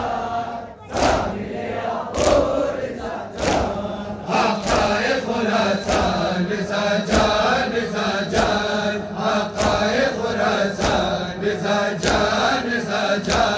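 Crowd of men chanting a noha (Muharram lament) together, with hands striking chests in unison in a steady beat about once a second.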